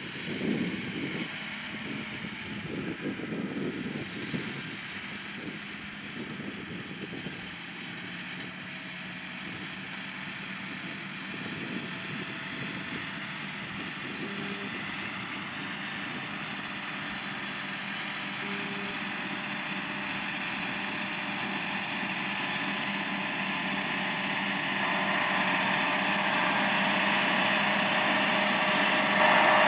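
Farm tractor engine running at a steady pitch, growing steadily louder throughout.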